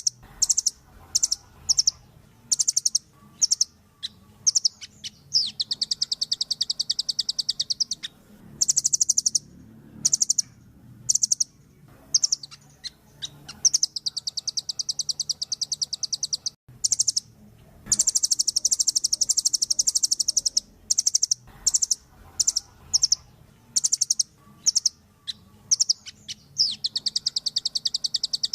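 Velvet-fronted nuthatch calling: high, sharp notes in short bursts, broken by several longer rapid trills that last two to three seconds each.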